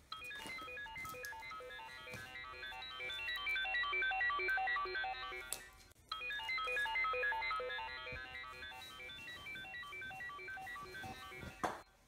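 An iPhone ringtone playing: a bright melody of quick, short notes, one phrase of about six seconds heard twice with a brief gap between. It cuts off abruptly near the end.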